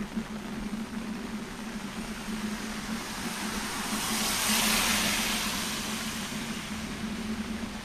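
A car driving past close by on a wet road: the hiss of its tyres on the wet asphalt swells and fades about four to six seconds in, over steady background rain noise.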